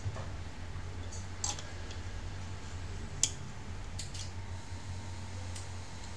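Small screwdriver clicking against the screws of a laptop's copper heat-pipe heatsink, a handful of short sharp clicks spread over a few seconds, over a steady low hum.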